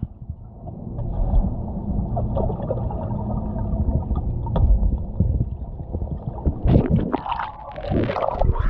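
Pool water heard underwater through a submerged GoPro Hero7 White's microphone: a muffled, low rumble of water moving over the camera, with sharper splashing sounds about two-thirds of the way in and again near the end.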